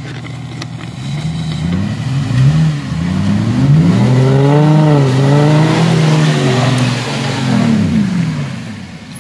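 Vehicle engines revving under load as a Jeep Wrangler tows a full-size SUV out of a mud hole on a rope. The revs climb about a second in, stay high through the middle, and drop off near the end.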